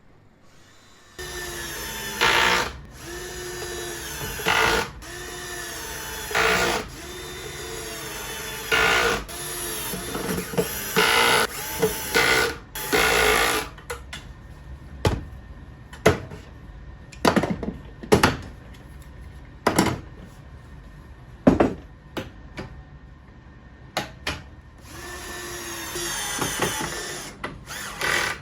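Power drill running in repeated short bursts, its pitch sagging and recovering with each run. This gives way to a series of sharp separate knocks, and the drill starts again near the end.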